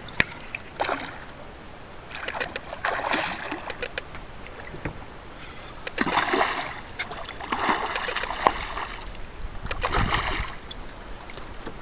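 Water splashing in several bursts of about a second each, a hooked redfish thrashing at the surface as it is brought to the boat, with a few sharp clicks in between.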